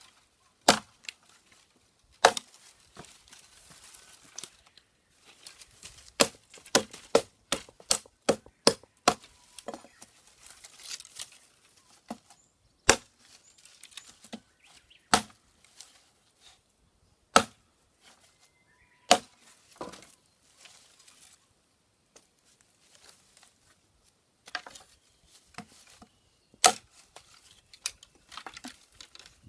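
A series of irregular sharp snaps and cracks, a handful much louder than the rest, with faint rustling between them.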